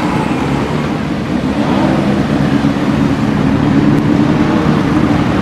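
A column of motorcycles riding past one after another, their engines running in a steady mix of engine notes that grows a little louder about two seconds in.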